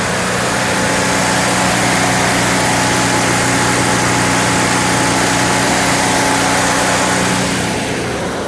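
Portable generator's small engine running steadily with a constant hum and hiss. The hiss eases off slightly near the end.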